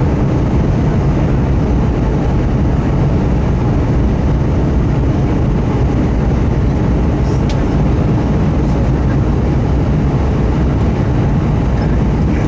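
Steady cabin noise inside an Airbus A320 descending on approach: the deep, even rumble of engines and airflow, strongest in the low end, with one faint tick about halfway through.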